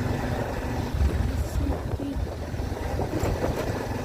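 Low, rumbling wind buffeting the microphone, with faint voices behind it.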